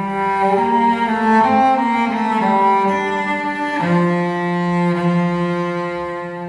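Recorded solo cello music played through a 300B push-pull tube amplifier. A run of bowed notes moves up and down, then about four seconds in the cello settles on one long held low note.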